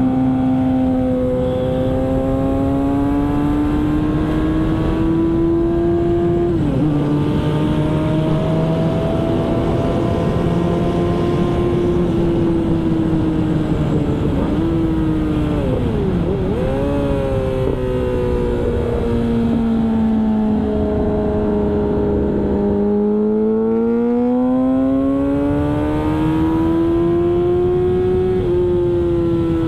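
Yamaha R6 sport bike's inline-four engine under hard riding on a race track. The note climbs in pitch as it accelerates and drops suddenly at gear changes, about seven seconds in and again near the end. Midway it falls and wavers as the bike slows for a corner, then runs low for a few seconds before climbing again.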